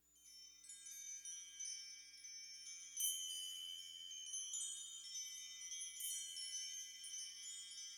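Wind chimes ringing softly in overlapping high tones, with brighter strikes about three seconds in and again about six seconds in: the opening of a new-age music track.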